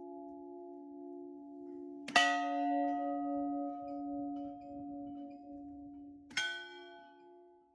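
An Orthodox church bell ringing out. The hum of an earlier stroke fades, then the bell is struck twice, about four seconds apart. Each stroke rings on with a slowly pulsing hum and dies away, and the second stroke fades out near the end.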